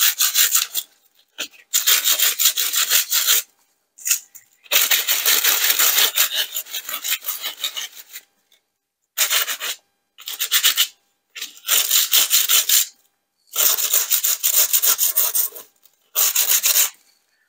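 Fine 600-grit sandpaper rubbed lightly over the raised areas of embossed copper glossy cardstock, in about eight runs of rapid strokes with short pauses between them. The sanding wears the foil layer off the high points so they turn silver.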